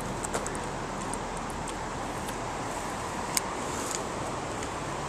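Steady outdoor background noise with no clear single source, broken by a few faint clicks and one sharper tick about three and a half seconds in.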